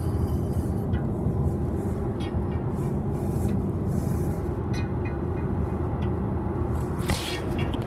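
Steady low rumble of a moving vehicle heard from inside its cabin, with a few faint clicks and rattles.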